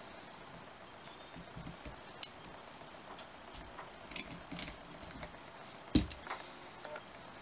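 Scattered light clicks and taps of small metal carburettor parts and a hand tool being worked on a workbench, with one sharp, louder knock about six seconds in.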